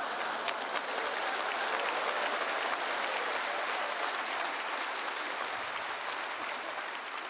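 Large live cabaret audience applauding after a punchline, a dense spatter of many hands clapping that slowly dies down near the end.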